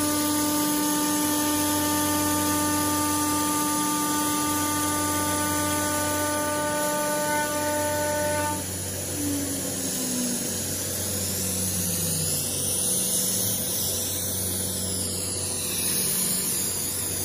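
CNC router's 6 kW spindle whining at a steady pitch as it cuts aluminum composite panel. About eight seconds in it is switched off, and its pitch falls over the next few seconds as it coasts down. A steady low hum runs underneath, with a rushing hiss in the second half.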